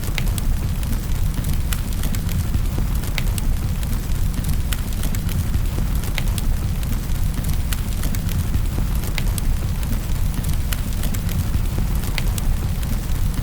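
Wood fire crackling, with scattered sharp pops and snaps over a steady low rumble and hiss.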